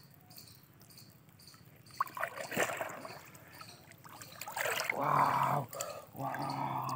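Muddy water splashing and sloshing as a bamboo polo fish trap is plunged down into shallow water, in a few separate bursts. Near the end a voice sounds twice briefly, louder than the splashing.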